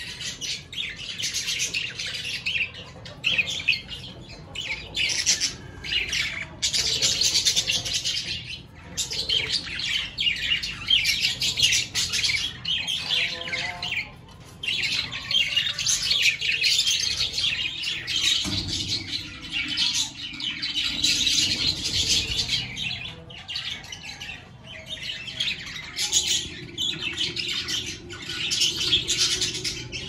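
A flock of budgerigars chattering and chirping continuously in an aviary, with a few brief lulls.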